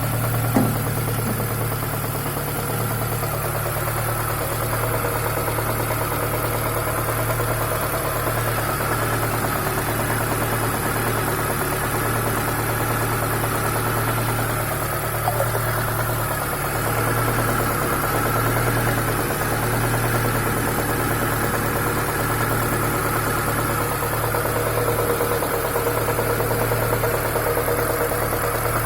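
ZAZ Chance 1.3-litre petrol engine idling steadily with a knock in it, the engine knock that is the fault in question.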